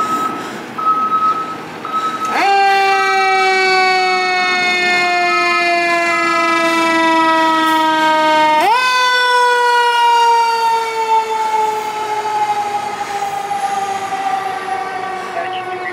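Fire engine siren on a 2015 Spartan ER Metrostar pumper pulling out on a call. It sounds twice, each time jumping sharply up in pitch and then winding slowly down over several seconds. A repeated electronic beeping is heard before the siren starts.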